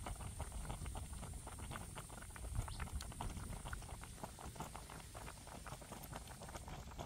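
A pot of fish, chilies and herbs boiling in water, bubbles popping in a quick, irregular patter of small clicks over a low rumble.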